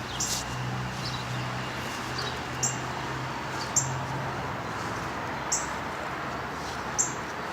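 A bird chirping: short, high chirps every second or two, over a steady low hum.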